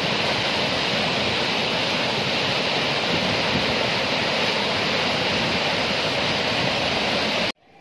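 Floodwater rushing and churning in a steady torrent through a breach beneath a railway track, where the water has cut its way under the rails and washed out the embankment. The sound cuts off abruptly near the end.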